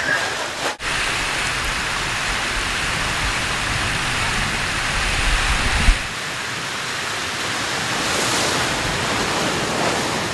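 Water rushing and splashing down the lanes of a mat-racing water slide, a steady hiss like heavy rain, broken by sudden shifts about a second in and again near the middle.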